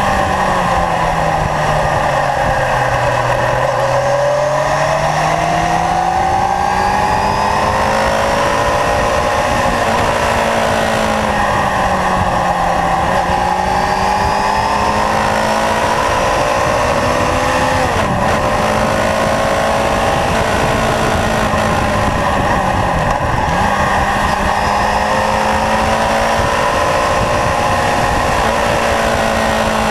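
Kawasaki Zephyr's air-cooled inline-four engine pulling through bends, its note falling and rising with the throttle, with two brief sharp dips in revs past the middle. Wind rush over the microphone throughout.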